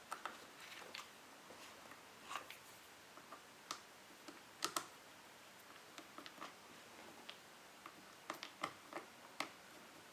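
Faint, scattered light clicks and taps from handling the wires and the small parts of a hedge trimmer's cable connection while the wire ends are fitted into their terminals, with a small cluster of clicks near the end.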